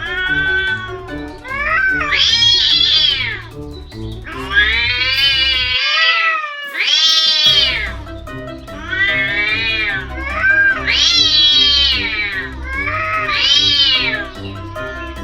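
House cats caterwauling at each other in a pre-fight standoff: a string of about eight long, drawn-out yowls, each rising and then falling in pitch, over background music.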